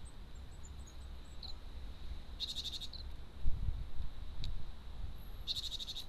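A small songbird's rapid trill, twice, a few seconds apart, with a few faint high chirps before the first. A dull low thump falls between the two trills.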